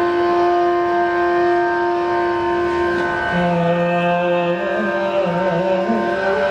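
Carnatic-style classical music, the accompaniment for a Mohiniyattam dance. A long note is held throughout, and about three seconds in a second, lower melodic line enters with wavering, ornamented slides.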